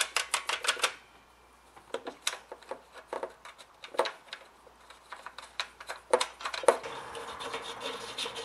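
Small metal clicks and clinks as nuts are started by hand onto the recoil housing studs of a cut-off saw, then a socket tool is handled. There is a quick run of clicks at the start, scattered single clicks after it, and busier clicking near the end.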